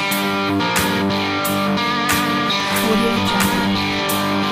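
Intro music: a guitar-led piece with strummed chords over held tones and a steady beat, about one stroke every two-thirds of a second.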